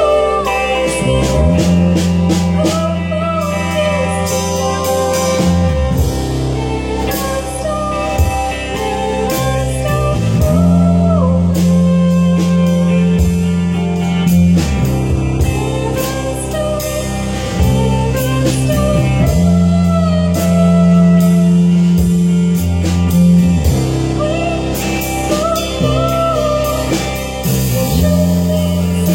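Music: a song with a singing voice over guitar, drums and a bass line whose held notes change every few seconds.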